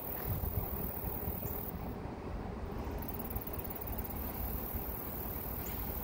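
Steady outdoor background noise with a low, uneven rumble.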